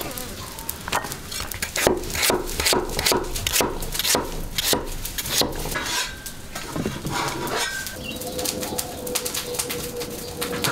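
Metal spatula scraping and clanking against a wok in quick repeated strokes, about three a second, as food is stirred over the heat.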